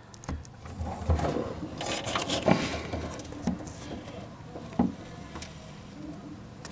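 Handling noise from working inside a car door with its trim panel off: scattered light knocks, clicks and rustling, with a sharper knock about two and a half seconds in and another near five seconds.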